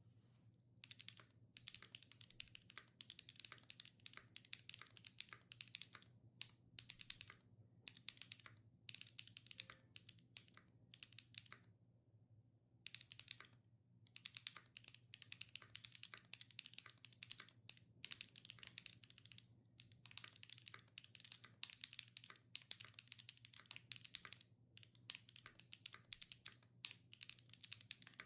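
Typing on a budget custom-built Transition Lite mechanical keyboard: fast runs of key clicks with short breaks and a longer pause about twelve seconds in.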